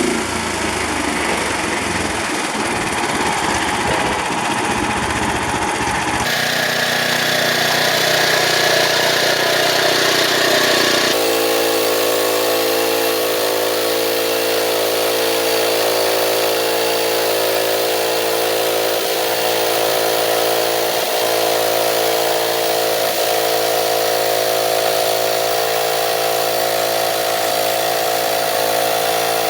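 Engine of a Frontier OS27 portable bandsaw sawmill running steadily. The sound changes abruptly twice, about six and eleven seconds in, then holds a steady pitch.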